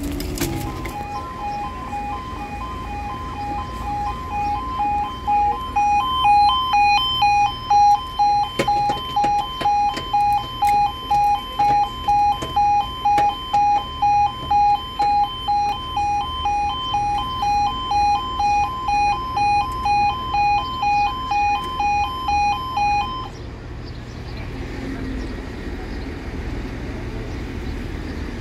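Level crossing audible warning alarm sounding a rapidly pulsing two-tone note. It starts about a second in, grows louder a few seconds later and cuts off about five seconds before the end.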